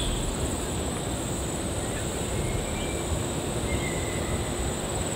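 Outdoor ambience, mostly wind rumbling against the microphone, with a faint, steady high-pitched buzz above it.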